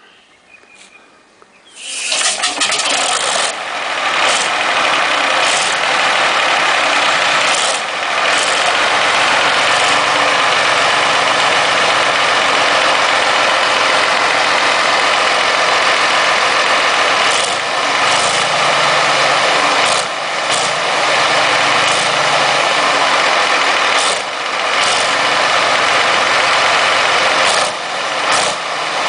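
A T-34/85 tank's 38-litre V-2 V12 diesel engine, run out of the tank on a stand, starting: a quiet moment, then it catches about two seconds in and runs loud and steady.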